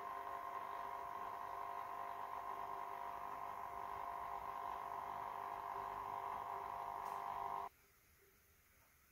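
Aquarium pump running with a steady electric hum made of several fixed tones. The hum cuts off suddenly about three-quarters of the way through, leaving near silence.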